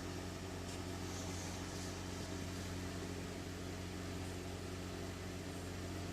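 Steady low hum with a faint hiss, unchanging throughout: background room tone.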